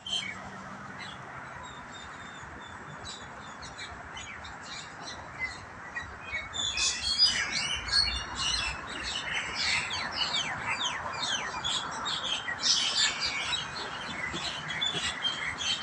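A flock of mynas calling and squabbling over a steady faint hiss. There are only a few scattered calls at first, then from about six seconds in many harsh calls and whistles overlap densely.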